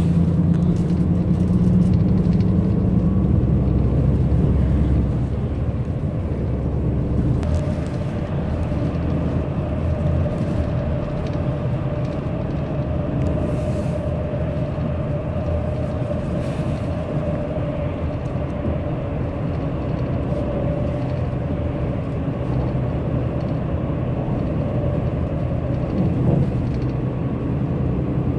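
Road and engine noise inside a moving bus: a steady low rumble, with a faint steady whine joining it about seven seconds in.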